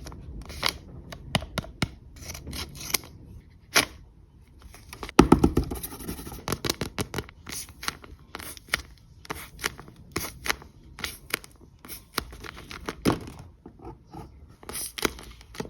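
Scissors snipping through paper in a run of short, irregular cuts, with paper rustling in between and a louder crinkle about five seconds in.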